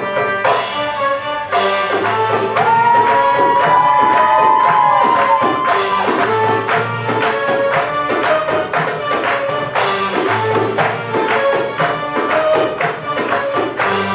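Live Middle Eastern ensemble music: electronic keyboards carry the melody over a steady hand-drum rhythm. A long note bends up and is held for about three seconds in the middle, and bright crashes mark the phrases near the start and about ten seconds in.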